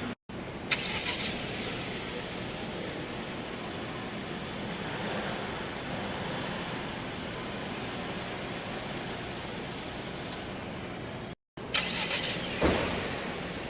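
A newly built Volvo S60's engine running steadily, with a sharp click about a second in and a few knocks near the end. The sound drops out briefly twice.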